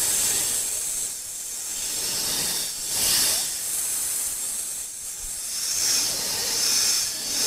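Snake hissing sound effect laid over a toy snake: a high, breathy hiss that swells and fades about three times.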